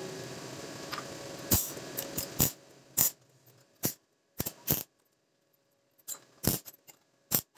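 Stick arc welder tacking thin steel wire and steel balls: about nine short, sharp arc bursts, each struck and broken off at once, with near silence between them.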